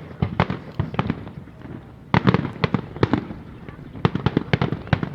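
Fireworks bursting in a quick, irregular series of sharp bangs, with a dense cluster about two seconds in and another around four seconds.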